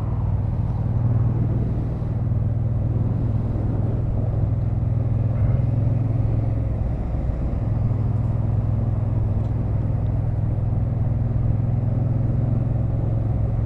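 Motorcycle engine running steadily, a continuous low hum under wind and road noise.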